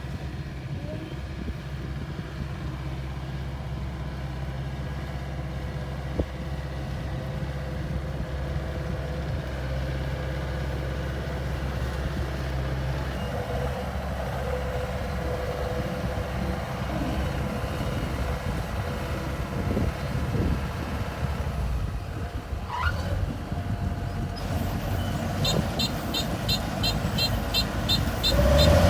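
Rice combine harvester's diesel engine running steadily under load. Near the end a rapid high beeping starts, about two to three beeps a second, like a reversing alarm.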